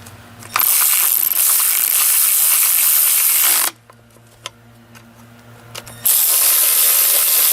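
Ratchet spinning 10 mm bolts into an engine's timing cover, in two steady runs of about three seconds each.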